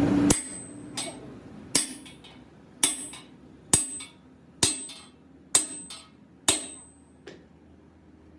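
Hammer striking steel, about seven sharp blows roughly one a second, each leaving a short high metallic ring.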